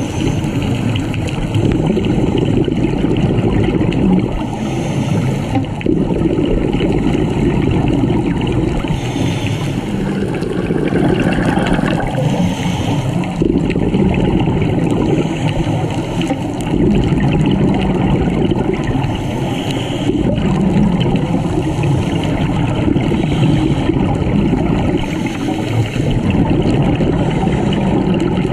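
Underwater sound of a scuba dive picked up through a camera housing: a steady muffled rumble, with a rush of exhaled bubbles from the diver's regulator every few seconds.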